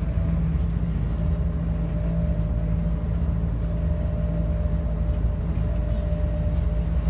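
Cabin noise of a Bombardier Innovia APM 100 rubber-tyred people-mover car under way: a steady low rumble with a constant hum.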